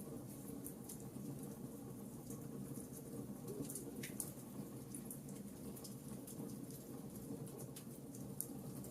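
Wood campfire crackling: scattered sharp pops and snaps over a steady low rumble of burning.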